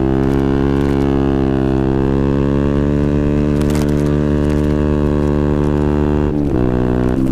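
KTM Duke 125's single-cylinder four-stroke engine running at a steady speed through a Scorpion exhaust with the dB killer removed, heard from onboard. The engine note holds nearly level, then dips briefly and picks back up near the end.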